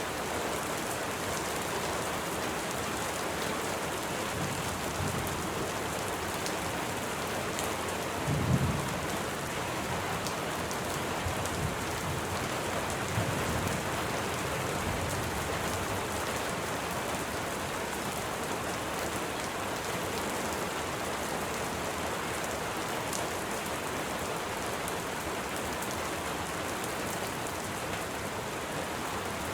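Steady rain falling, an even hiss of many drops. About eight seconds in a short low rumble of thunder rises above it, followed by a few fainter rumbles.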